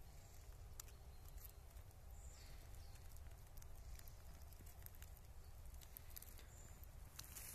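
Near silence: faint outdoor ambience with a low rumble, scattered faint ticks, and two brief high chirps, about two seconds in and again near the end.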